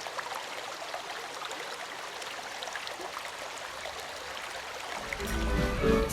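Running water, a steady rushing hiss with small splashes. About five seconds in, orchestral music starts over it.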